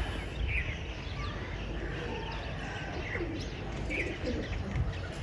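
Domestic pigeons cooing in the loft, with a few short bird chirps scattered through.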